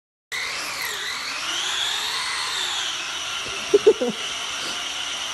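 F1TENTH self-driving RC car's electric drive motor whining as it speeds up and then slows down, the pitch rising for about two seconds and then falling, over a steady hiss.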